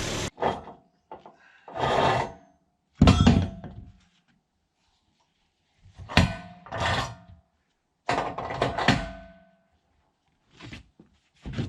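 Sawn wooden boards knocking and clattering as they are handled and stacked: six or seven separate hollow thunks, some ringing briefly. A steady engine noise stops just at the start.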